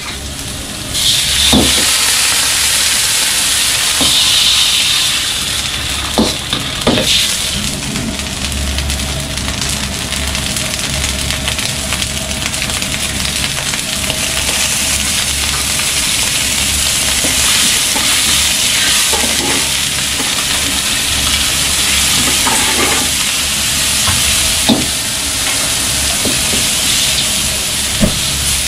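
Food sizzling in a carbon-steel wok, with a metal ladle stirring and now and then clanking against the wok over a steady low hum. By the end the wok holds crab pieces in steaming liquid.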